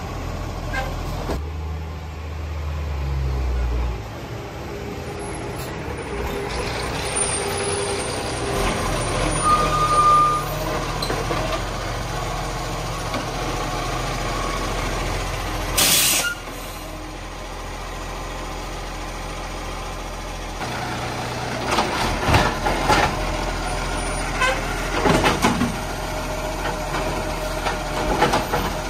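Automated side-loading garbage truck's diesel engine running as it pulls up to the bins, with a short air-brake hiss about halfway through. Near the end the hydraulic lifting arm whines and clanks as it grabs a wheelie bin and raises it to tip into the hopper.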